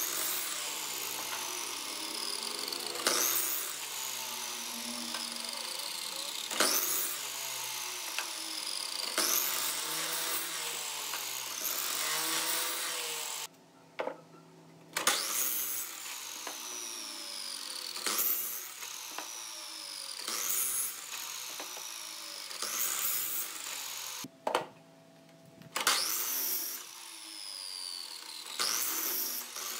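Sliding compound miter saw making repeated crosscuts through wood blocks, about ten in all. Each time the motor starts and the blade bites, then the motor winds down with a falling whine. Faint background music plays underneath.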